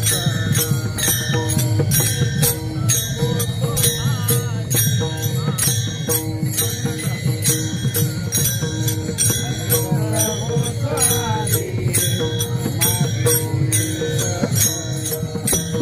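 Marathi devotional bhajan music: small hand cymbals (taal) strike in a steady beat of about two to three a second over held drone notes and a low drum. A wavering sung line rises above it briefly twice.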